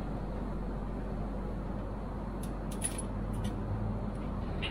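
Steady cabin noise of an Airbus A320-200 in flight, an even hiss over a low hum, with a few light clicks a little past halfway.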